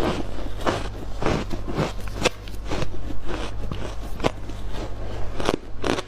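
Freezer frost chunks being bitten and chewed: crisp, repeated crunches at about two a second.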